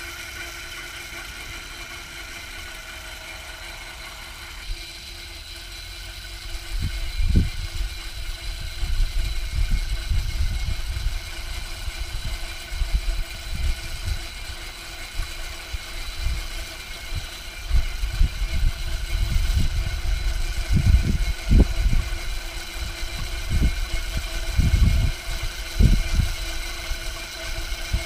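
Homemade electric Krot cultivator, its motor run through a variable-frequency drive and chain-driving rotary tiller tines, running with a steady whine while tilling unbroken sod. From about six seconds in, irregular low thumps and rumbles come and go and make it louder.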